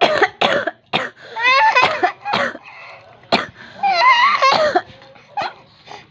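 A woman coughing repeatedly in short, sharp bursts, with a small child's high-pitched laughing and squealing between the coughs.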